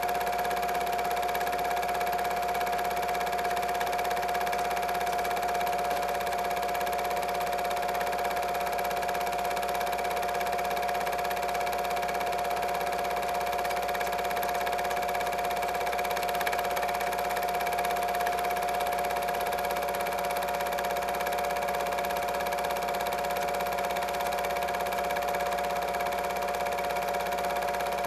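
A steady whine and hum with an even hiss beneath, unchanging throughout, with no separate sounds.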